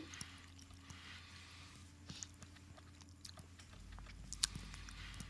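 Quiet room tone with a faint low hum and scattered small clicks and mouth noises close to a microphone. One sharper click comes about four and a half seconds in.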